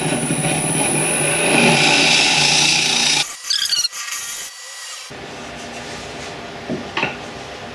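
Turning tool cutting across the face of a small African walnut blank spinning fast on a wood lathe: a loud, even cutting noise for about three seconds, squaring off the face. Then the cut stops and only a quieter steady running sound with a few faint clicks remains.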